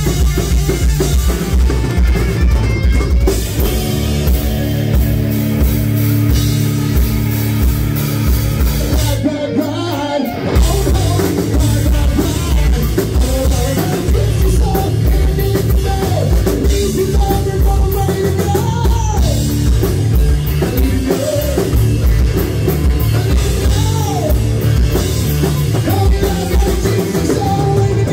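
Live hard-rock band playing loud, with distorted electric guitars and a driving drum kit. The playing is instrumental at first, with a short break about ten seconds in, after which a singer comes in over the band.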